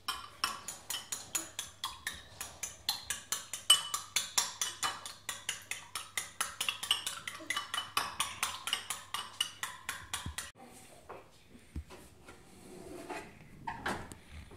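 A metal spoon beating raw eggs in a ceramic bowl, clinking against the bowl about four or five times a second. The beating stops about ten seconds in.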